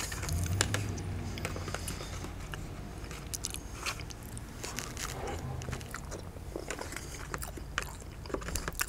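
Close-miked eating sounds: a metal fork clicking and scraping in a plastic tray of chili cheese fries, with chewing between, as scattered small clicks throughout.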